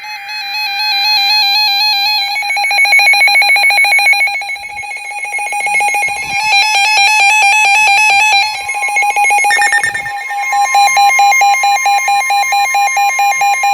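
Several NOAA weather radios sounding their alert alarms at once: overlapping, rapidly pulsing beeps that change pattern a few times. About nine and a half seconds in, a steady 1050 Hz Weather Radio warning alarm tone joins them, the signal of a warning-level alert.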